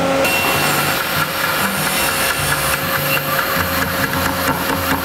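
Bandsaw running steadily, with a thick wooden board fed up to its blade.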